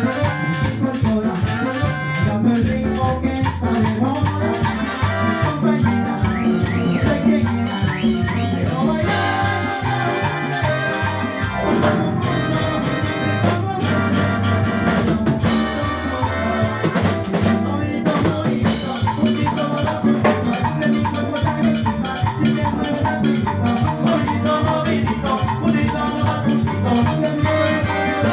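Latin tropical dance orchestra playing live, with drum kit and hand percussion driving a steady dance beat.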